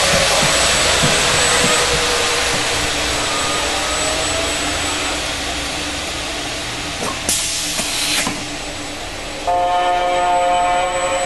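Robotic belt sander running with a loud, steady abrasive hiss, a faint tone under it sinking and then rising again. About two-thirds through come two short bursts of sharper hiss, and near the end the hiss drops and a chord of steady tones comes in.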